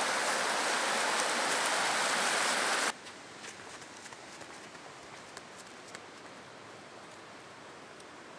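Rushing stream water over rocks, a loud steady hiss that cuts off suddenly about three seconds in. After that a much quieter outdoor hiss remains, with faint scattered ticks.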